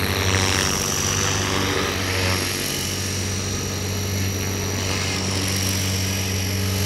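Electric 500-size RC helicopter (Quick Japan EP8 v2 EX, 6-cell battery) in flight: a steady rotor hum with a high-pitched motor whine over it.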